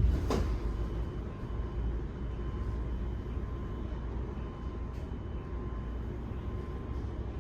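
Trolleybus traction motor whine sliding quickly down in pitch and dying away right at the start, as electric braking winds down. A steady low rumble with a faint constant hum follows.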